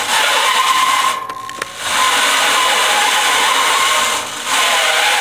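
Corded electric drill spinning an abrasive wheel against the rusty steel frame of a fan, grinding off rust: a steady motor whine under a harsh scraping hiss. The scraping drops out briefly twice, a little after a second in and near the end, as the wheel lifts off the metal, and the drill keeps whining on its own.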